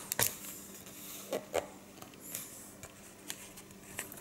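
Pages of a large hardcover comic-strip book being handled: about six soft, short paper rustles and taps, the strongest right at the start.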